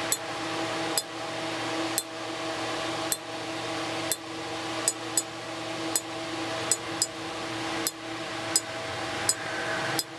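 Steel ball bearing dropped again and again onto a repaired Vulcan anvil's face: sharp metallic clicks about once a second, some in quick pairs as it bounces. The bearing rebounds about 85 to 90% off the face, a sign of good hardness. A fan hums steadily underneath.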